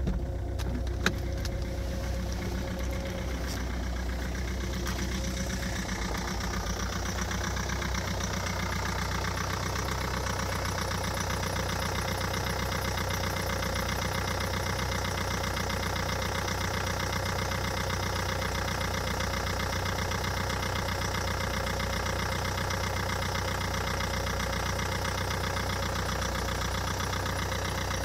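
Ford Focus 2.0 TDCi's PSA DW10 four-cylinder turbo-diesel idling cold, soon after a cold start at −1°C, with a steady diesel clatter. A sharp click comes about a second in. The engine is first heard muffled from inside the cabin, then from outside at the front of the car, where the clatter is clearer.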